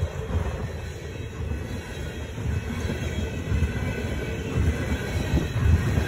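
Empty ethanol tank cars of a freight train rolling past close by: a low, uneven rumble of wheels on rail that grows louder near the end.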